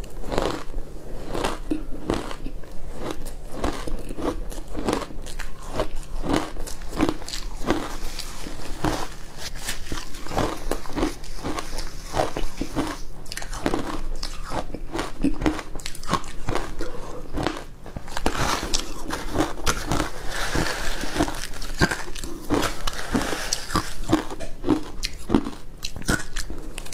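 Close-miked crunching and chewing of ice dusted with milk powder: a steady run of crisp bites, one or two a second, with a short pause about two-thirds of the way through.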